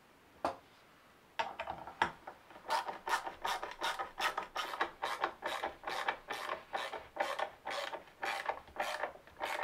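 A hand screwdriver driving a wood screw into a softwood strip, one turn at a time, each a short creaking grind of screw in wood, about two or three a second. It starts a little over a second in, after a couple of light clicks as the screwdriver is set on the screw.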